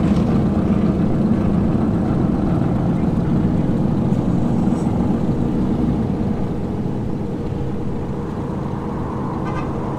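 Exhaust of a lifted pickup truck, a Dodge Ram 1500, running with a low, steady drone as it drives slowly past. It fades gradually.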